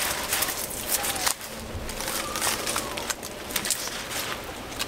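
Rustling and crackling of leaves, twigs and hammock strap webbing as a hammock suspension is adjusted around a tree trunk, with many small irregular clicks.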